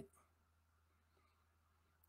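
Near silence, with only a faint low steady hum.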